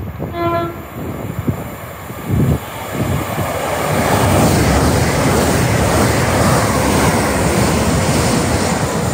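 Class 387 Electrostar electric train sounds one short horn note about half a second in. It then approaches and runs past along the platform, the rumble and wheel noise swelling from about three seconds in and staying loud.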